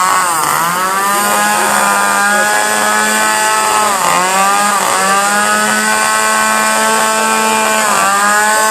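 Gas chainsaw's engine running fast at a steady high pitch. Its revs dip briefly and climb back several times: just after the start, about four seconds in, and near the end.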